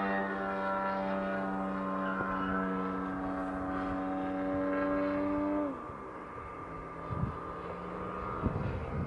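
ZDZ 180 two-stroke petrol engine of a large-scale Extra 260 aerobatic model plane running steadily at high throttle; a little over halfway through its pitch falls and it goes quieter, with a few soft knocks near the end.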